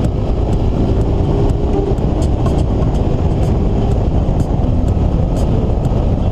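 Vehicle driving along a wet dirt track, heard from inside the cabin: a steady, loud rumble of engine and tyres, with scattered light ticks.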